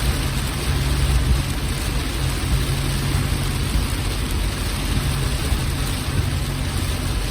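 Car driving in rain: steady rain noise over a steady low engine hum.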